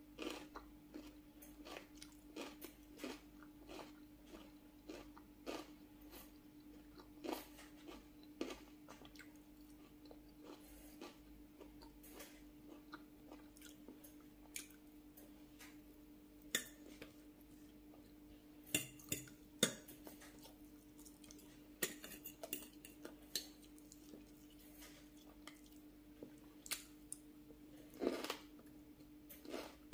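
Close-up eating sounds: chewing and biting on rice, vegetable curry and crunchy cucumber-and-tomato salad, with forks clicking against a glass bowl and a plate now and then, more often in the second half. A faint steady hum lies underneath.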